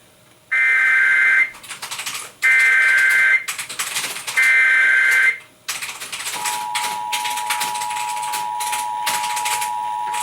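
Emergency Alert System test received over the radio: three data bursts of the SAME header (the "burps"), each about a second long and spaced about two seconds apart, then the steady two-tone attention signal starting about six seconds in. Crackling static runs through the gaps.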